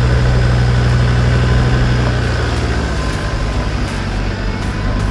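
Off-road 4x4's engine working under load as it climbs a steep rooty step, with a steady low note that drops to a lower, quieter one about three seconds in.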